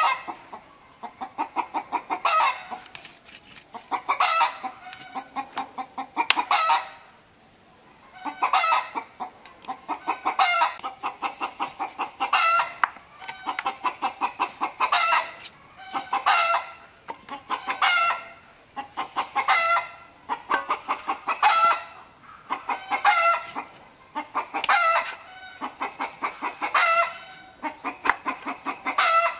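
Chickens clucking: each call is a run of quick clucks ending in a longer cackle, repeating about every two seconds.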